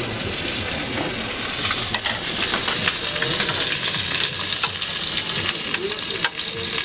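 Hot oil sizzling steadily in a frying pan on a gas burner as food fries, with a few sharp clicks on top.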